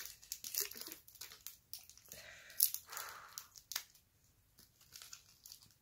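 Small crinkles and clicks of a sweet wrapper being handled, with soft mouth sounds of the sweet being eaten.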